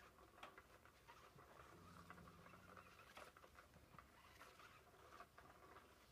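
Near silence: faint rustling with scattered soft ticks, and a faint low hum for about a second in the middle.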